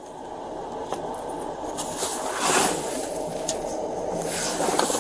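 Rustling and scraping of a body-worn camera rubbing against clothing as the wearer shifts in a car seat, with a swell of rustle about halfway through and a few light clicks.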